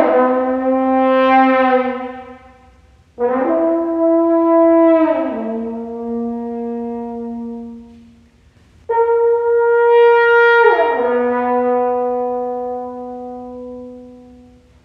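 Unaccompanied French horn playing three long held notes, each starting loud and dying away. The second and third notes each slide down to a lower pitch and hold there, and the last fades out near the end.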